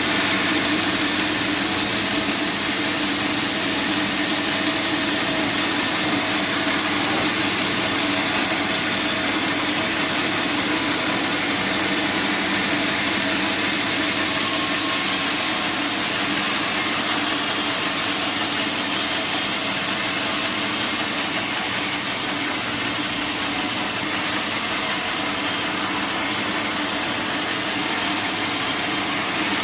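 Sawmill band saw blade cutting lengthwise through a teak log: a steady, continuous rasping saw noise with a faint machine hum under it.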